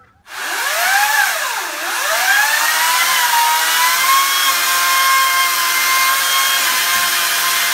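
Electric chainsaw starting with a rising whine, dipping and rising again, then running at a steady high whine as it cuts into the trunk of a potted tree.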